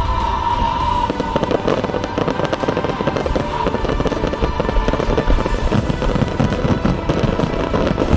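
Aerial fireworks crackling densely, with many rapid pops, while music plays along.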